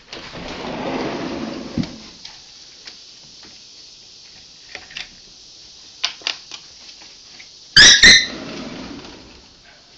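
Chihuahua yipping twice, sharp and high-pitched, just before the eight-second mark, at something outside a glass door. Scattered light clicks and a rustling swell near the start are also heard.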